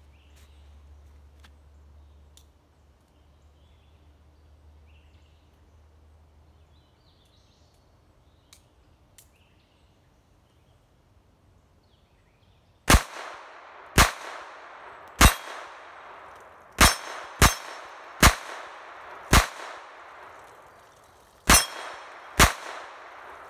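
A Phoenix Arms HP22 .22 LR pocket pistol firing about nine sharp shots, starting about thirteen seconds in, unevenly spaced roughly a second apart. Each shot trails off briefly. Before the shooting it is quiet apart from a few faint ticks.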